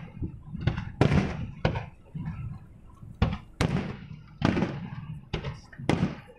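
Aerial fireworks shells bursting overhead: about eight sharp booms at uneven intervals, each trailing off in an echoing tail.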